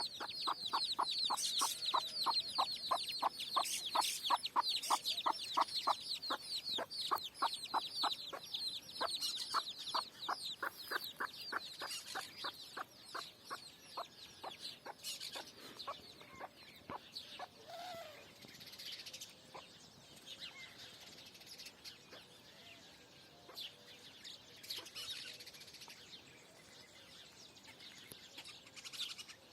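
Chickens clucking in a quick, steady run of about four calls a second, mixed with high falling peeps. The calls fade out about halfway through, leaving only faint scattered chirps.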